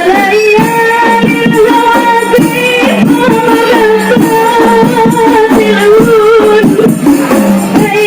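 Qasidah song with a solo voice singing long, wavering held notes over rebana frame drums beating a steady rhythm.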